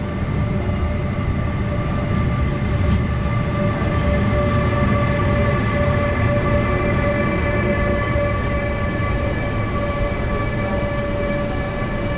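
Intercity train with a CP 5600 electric locomotive and Corail coaches arriving and rolling past on the platform track: a steady low rumble of wheels with a high whine of several steady tones held over it.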